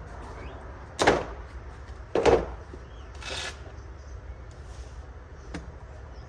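Two loud knocks about a second apart, then a fainter scraping rustle: a socket set's plastic storage case being handled, its lid or latches opening or closing.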